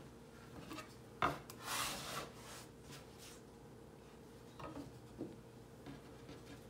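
A bench scraper knocks once on a wooden board about a second in, then scrapes across the board for about a second as it loosens the dough. Later there are a few soft taps and rubs of hands on the dough and the floured board.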